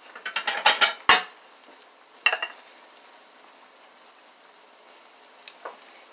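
Thick piece of fry bread dough frying in a pan of hot oil: a steady sizzle, with a quick cluster of sharp crackling pops in the first second or so, then a few scattered pops.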